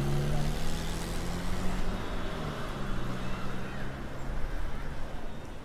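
City bus engine running with a steady low hum that fades near the end, over general street noise.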